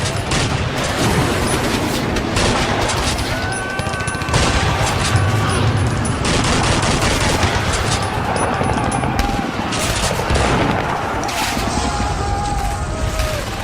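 World War II battle sound effect: dense rifle and machine-gun fire with deep explosions, and men shouting now and then.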